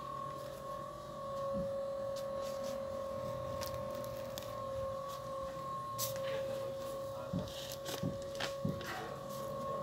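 A steady high hum of two held tones, with scattered faint clicks and rustles that come more often in the second half.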